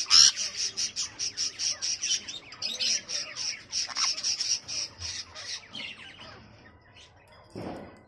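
Sun conures calling: a rapid run of short, shrill squawks, about four a second, that tapers off after about six seconds.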